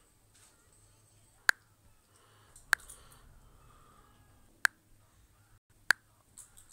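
Four sharp single clicks, one to two seconds apart, over a very faint background.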